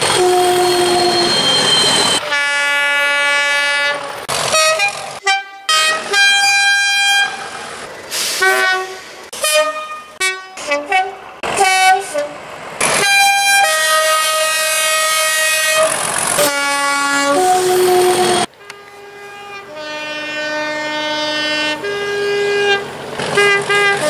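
British Rail Class 37 diesel locomotives' two-tone air horns sounding over and over in short and long blasts, alternating between a higher and a lower note, with the noise of the passing train between blasts. It is several separate horn sequences cut together, with an abrupt break about two thirds of the way through.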